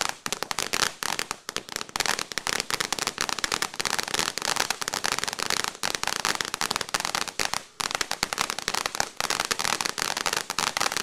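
200 g firework fountain burning, giving off a dense, continuous crackle from its crackling stars, with a few brief lulls.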